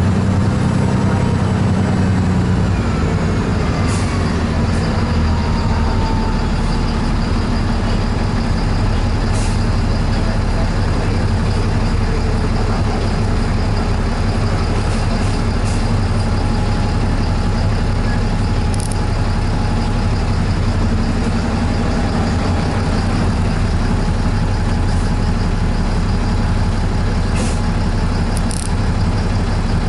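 Steady low engine hum and road-traffic noise heard from inside a vehicle, with a few faint clicks.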